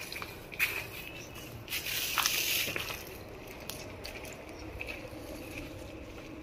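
Footsteps crunching on dry leaf litter, with dry brush rustling. The rustle is irregular, with a short burst just under a second in and a louder stretch of about a second starting around two seconds in.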